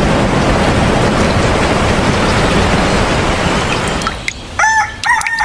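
Steady rain noise, a loud even hiss. About four seconds in it stops abruptly, and a rooster starts to crow in short pitched calls.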